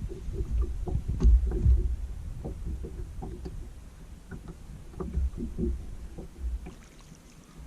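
Irregular low thumps and a few sharper knocks of handling inside a small fishing boat, growing quieter in the second half.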